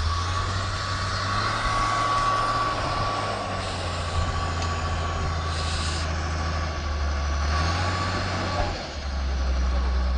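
Motor grader's diesel engine running steadily, with a high whine over it. About nine seconds in the whine stops and the engine settles to a steady lower running.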